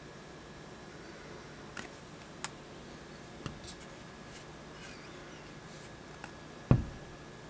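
Steady faint hiss with a few light clicks, and one sharp low thump about seven seconds in, from handling of the camera.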